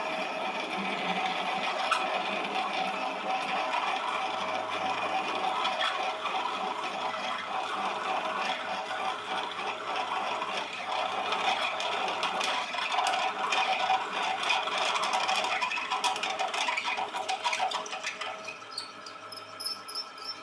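Manual metal lathe running while a twist drill in the tailstock cuts into a square steel plate spinning in the chuck: a steady machining rattle and scrape with scattered ticks. Near the end the noise eases off and a faint, high, chirping squeak is heard.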